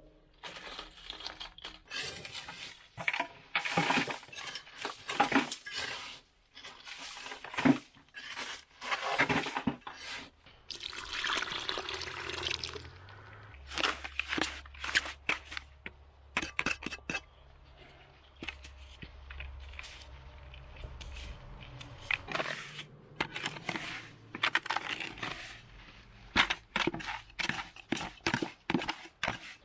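Hand work with wet mortar: irregular knocks and clinks, with stretches of wet scraping and slopping, as mortar and nails are worked in around a stovepipe where it passes through a log wall.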